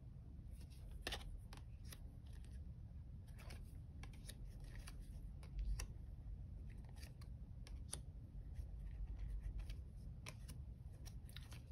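Tarot cards being handled and turned over one at a time: faint, irregular soft clicks and slides of card stock.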